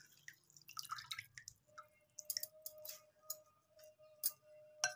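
Water dripping and splashing lightly in a glass bowl as a slice of bread is dipped and squeezed, heard as scattered soft drips and small taps. A faint steady tone comes in about two seconds in.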